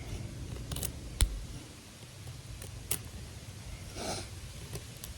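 Knife blade digging into a thin piece of wood: a few sharp cracks and clicks, the loudest about a second in, and a short scrape near the end.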